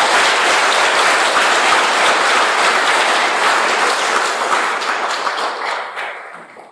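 Audience applauding: a dense patter of many hands clapping, fading away over the last second or so.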